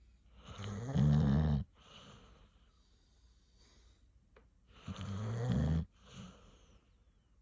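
A sleeping dog snoring: two loud, horn-like snores, one about half a second in and one about five seconds in, each followed by a softer breath out.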